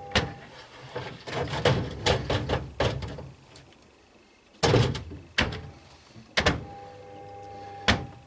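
Bricks and hammers tumbling inside a running White Knight tumble dryer's drum: irregular heavy clunks and bangs, a quick run of them in the first three seconds, then a short lull and about five single heavy knocks, over a faint steady hum.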